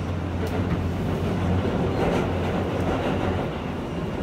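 Kawasaki R160B subway car running, heard from inside the car: a steady low hum and the rumble of wheels on rail, with a few faint clicks.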